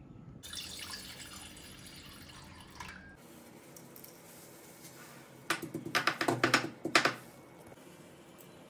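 Stone mortar and pestle handling crushed green cardamom: a soft rustle early on, then about a second and a half of sharp, rapid knocks and clicks against the stone.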